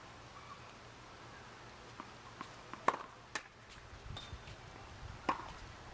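Tennis ball popping off racket strings and bouncing on a hard court: a few sharp, separate pops, the loudest about three seconds in.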